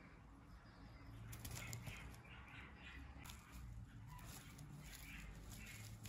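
Faint rustling and wing flutters of a budgerigar chick moving about in a bouquet of flowers, with small scattered clicks over a low hum.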